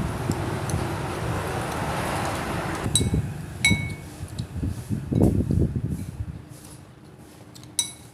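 A spoon clinking against a ceramic bowl a few times, with sharp ringing clinks about three seconds in and again near the end. Before the first clink a steady rumble of passing traffic runs and fades.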